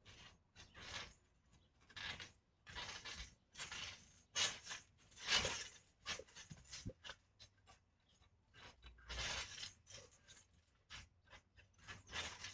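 Irregular rustling and scuffing as a person rolls and grapples on a trampoline mat, in short noisy bursts with the loudest about five seconds in.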